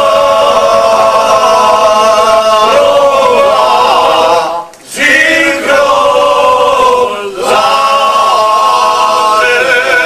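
A group of six older men singing a traditional Serbian folk song together a cappella, holding long drawn-out notes. They break off briefly about halfway through to take a breath, then carry on.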